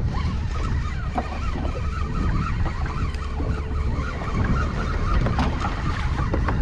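Steady low rumble of a small fishing boat at sea, with scattered faint knocks and clatter over it.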